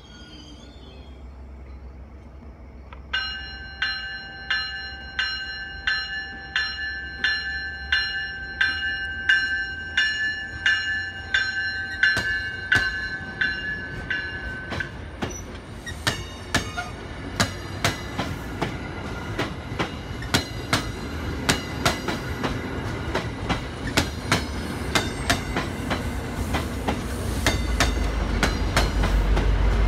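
A push-pull commuter train passes, cab car first. A bell rings at about one and a half strokes a second for some twelve seconds, starting a few seconds in. Then the wheels click over rail joints in a quickening rhythm. Near the end, the low rumble of the F40 diesel locomotive at the rear rises as it comes by.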